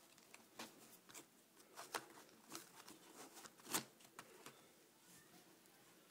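Faint handling noises of a boxed toy figure's plastic packaging and accessories: about ten short rustles and clicks, the loudest a little before four seconds in.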